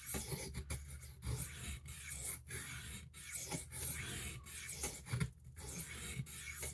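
A D2 steel pocketknife blade stroked back and forth on a Washita Arkansas oilstone under moderate pressure, sharpening the edge: a scraping hiss at about two strokes a second, with a longer pause about five seconds in.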